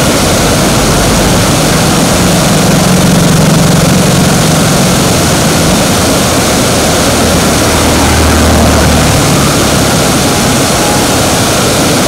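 Floodwater rushing over a rock ledge and churning below: a stream in spate after heavy rain, running loud and steady with a low rumble underneath.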